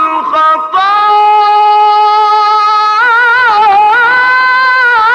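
A male munshid's voice chanting Egyptian Islamic ibtihalat. He draws out one long vowel on a steady pitch, then breaks into wavering melismatic ornaments about three seconds in.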